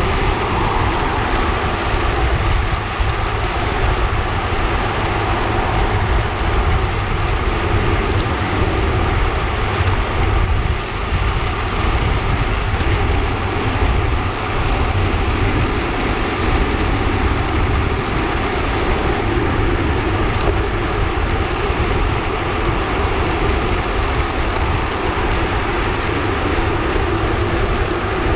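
Steady rush of wind over a handlebar-mounted camera's microphone as a road bike rides at speed in a group, with a heavy low rumble throughout.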